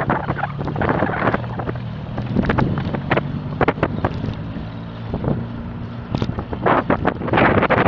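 Wind buffeting the microphone of a camera riding along on a moving bicycle, with many short clicks and knocks scattered through it and a low steady hum through the middle part.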